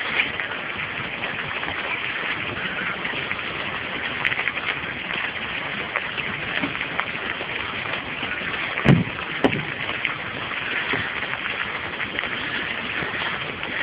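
Steady hiss of rain falling on standing floodwater, with two dull knocks in quick succession about two-thirds of the way through.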